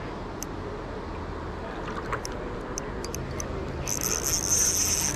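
Shimano Ci4 spinning reel cranked to retrieve line on a hooked salmon, a steady high whirring that starts about four seconds in, over low water and handling noise with a few scattered clicks before it.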